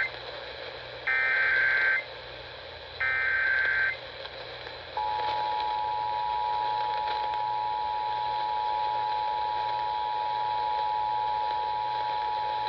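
Emergency Alert System test tones. First come the last two of the three SAME header data bursts, harsh digital warbles each about a second long and a second apart. Then, from about five seconds in, the steady two-tone EAS attention signal sounds (853 and 960 Hz together).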